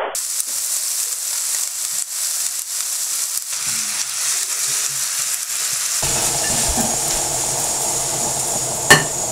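Noodles, cabbage and pork sizzling as they are stir-fried in a frying pan, a steady hiss throughout. A single sharp click sounds near the end.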